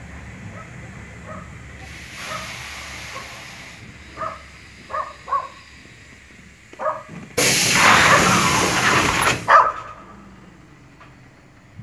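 A small dog barking at the train in a run of short yaps under a low running rumble. Between the barks a loud hiss of air from the diesel train lasts about two seconds and is the loudest sound.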